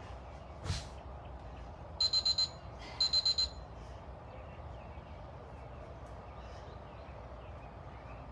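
Workout interval timer beeping: two quick bursts of four short high-pitched beeps, a second apart, the alarm marking the end of a timed interval. A single soft thump comes just before.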